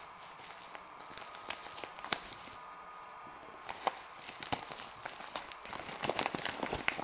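A postal package being opened by hand: scattered clicks and rustles of packaging, turning into denser crinkling about six seconds in.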